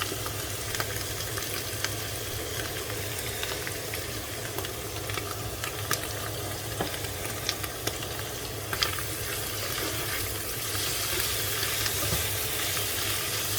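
Chanterelle mushrooms sizzling steadily as they fry in butter in a pan, with scattered sharp pops and clicks.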